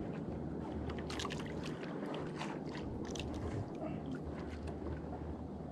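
A boat's engine humming steadily in the background, with scattered light clicks and taps over it.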